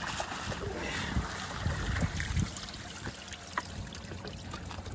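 Water trickling and dripping, with a few dull low knocks.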